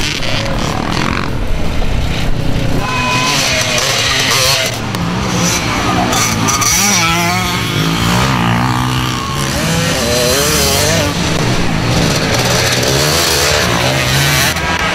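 Several vintage dirt bike engines revving and riding past, their pitch rising and falling as they accelerate and back off.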